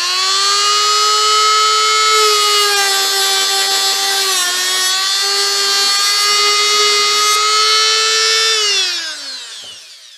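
Dremel-type rotary tool with an abrasive cut-off disc spinning at a steady high whine while cutting through a model railway rail. Its pitch sags briefly about halfway through, then runs down and fades out near the end as the tool is switched off.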